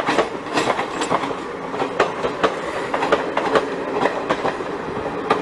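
Indian Railways passenger coaches rolling past at speed, their steel wheels clattering over rail joints in a quick, uneven run of sharp clicks over a steady rumble.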